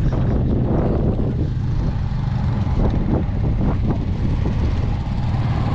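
Truck engine running with a steady low rumble.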